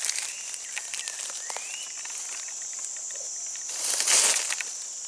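Forest ambience: a steady high insect buzz, a faint rising bird whistle about a second and a half in, and a crunch of a footstep in dry leaf litter about four seconds in, the loudest sound.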